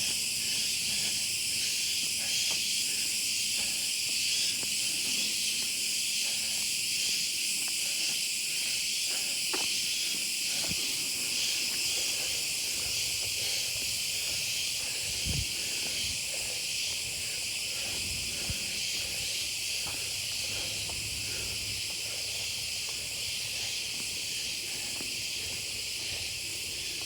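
Steady, dense chorus of insects in the forest, a shrill high-pitched hiss that holds unbroken throughout. A couple of soft low thumps come through about halfway.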